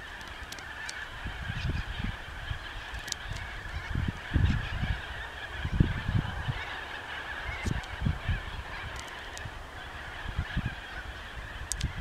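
A flock of hundreds of corellas calling together in a steady, dense chorus of shrill calls, with now and then a single call standing out. Irregular low rumbling bumps on the microphone come through under the flock, loudest a few seconds in.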